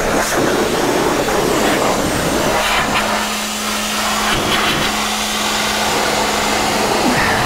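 Self-service car-wash high-pressure lance spraying water onto a muddy motorcycle: a steady hiss of water jet. A steady low hum comes in about two and a half seconds in and stops near the end.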